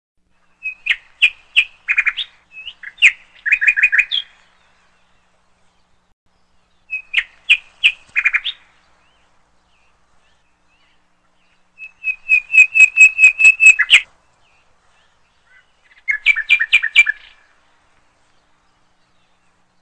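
Bird chirping in quick high trills, in four short bursts a few seconds apart, the third burst the longest and loudest.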